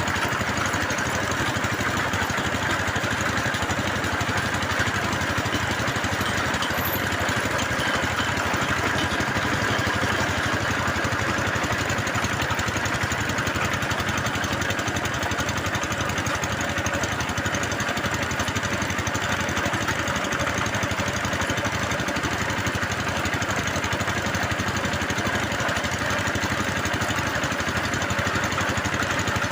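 Engine of a bore-well drilling machine running steadily at a constant speed, with a fast, even chugging.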